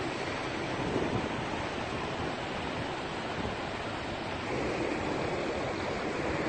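Steady rushing noise of wind on the microphone over the low hum of slow, jammed highway traffic, growing slightly louder in the last couple of seconds.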